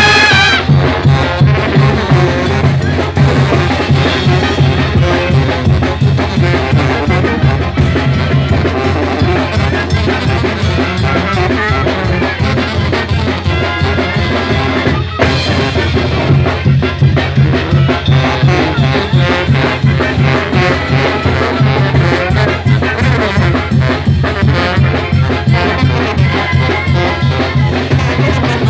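Street brass band of trumpets and sousaphones playing a lively dance tune over a steady, driving drum beat, with a brief break in the sound about halfway through.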